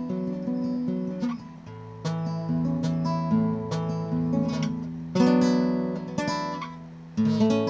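Background music: acoustic guitar strummed and picked, with chords struck every second or two and left to ring.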